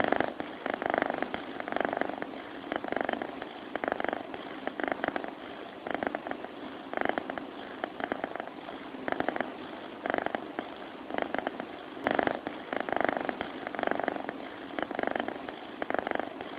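A sleeping cat purring close to the microphone: a grainy rumble that swells about once a second with each breath in and out.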